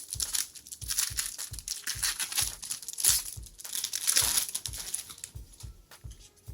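Foil wrapper of a Topps jumbo baseball card pack crinkling as it is torn open and pulled off the stack of cards; the crinkling dies down about five and a half seconds in.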